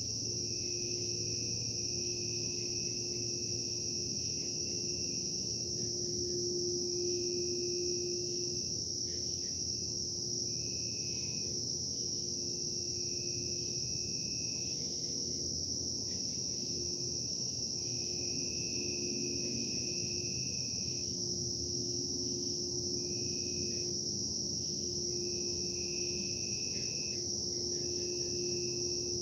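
Insects chirping in a steady high-pitched chorus, with a second lower trill that starts and stops every second or two. Underneath runs a steady low hum with one held tone, the industrial production noise that the recording documents.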